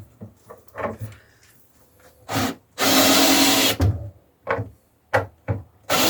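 Power drill running in short bursts of about a second, likely backing screws out of the wooden bracing on a glued pallet-wood panel, with sharp wooden knocks and clatter between the bursts.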